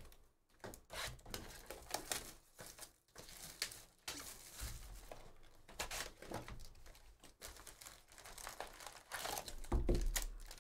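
A cardboard trading-card hobby box being torn open by hand and its stack of foil-wrapped card packs pulled out, with irregular crinkling and tearing throughout.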